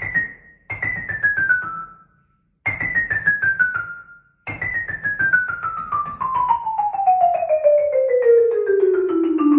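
Marimba struck with mallets in fast scale practice: two short descending runs that break off after a second or so, then a long quick run stepping down steadily over about three octaves.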